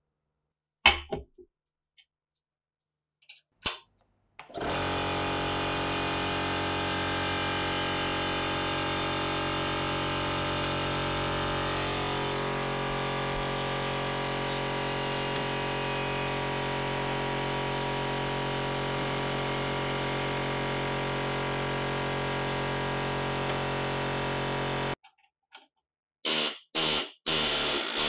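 A few light metal clicks, then a small electric motor running at a steady speed for about twenty seconds; it stops suddenly, and several short, loud bursts follow near the end.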